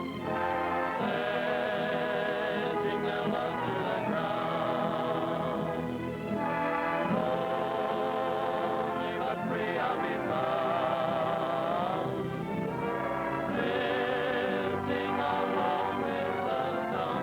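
1930s film soundtrack music: an orchestra with a choir singing, with wavering, vibrato-laden voices. The sound is dull, with nothing above about 4 kHz.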